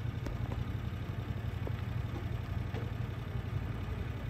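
A utility vehicle's engine idling with a steady low hum, with a few faint ticks over it.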